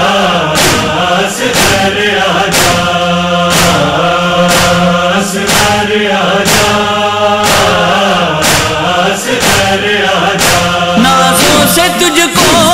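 A chanted vocal chorus of a Shia noha (Urdu lament) over a steady low drone, with a sharp beat about once a second.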